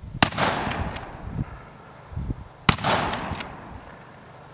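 Two 12-gauge shotgun shots about two and a half seconds apart from a Remington 870 Police Magnum pump-action firing heavy magnum BB loads. They are heard from the targets about 40 yards downrange, and each sharp report is followed by a rolling echo.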